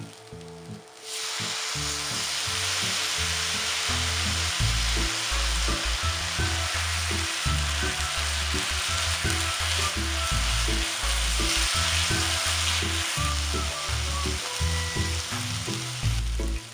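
Julienned new potato and carrot sizzling loudly in a hot frying pan. The sizzle flares up suddenly about a second in as soy sauce hits the pan, then keeps going while the vegetables are stirred quickly with chopsticks to cook off the liquid.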